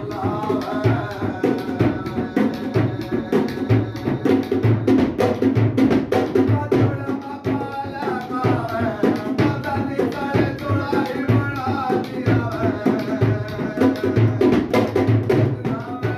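Devotional bhajan music: a dholak hand drum plays a fast, steady rhythm of deep strokes and sharp slaps, under a continuous melody line.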